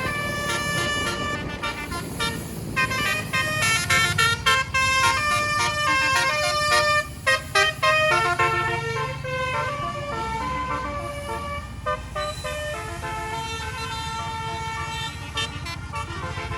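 Bus telolet basuri melody horn playing a tune in quick stepping notes, settling into longer held notes in the second half, over a low rumble.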